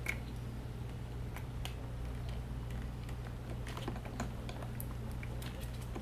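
Scattered small clicks and taps of hands working a brittle plastic spark plug coil connector and its wire pins, with a bunch of quick clicks around the middle, over a steady low hum.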